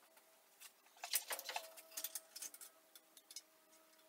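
Light metallic clinks, taps and scrapes of steel parts being handled and fitted by hand on a car chassis, with a bunch of sharp clicks about a second in.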